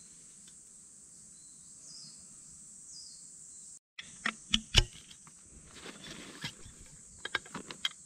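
Insects buzzing steadily at a high pitch. About four seconds in come a run of sharp clicks and knocks as the sections of a tent pole are fitted together, the loudest knocks just under a second later.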